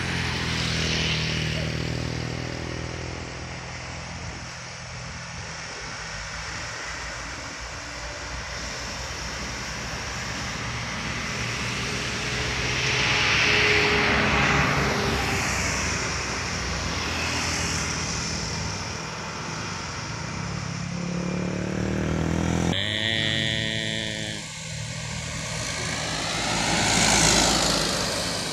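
Diesel trucks at full throttle, passing one after another through a sharp bend, their engines loudest as each goes by. About 23 s in, a truck horn sounds for about a second and a half.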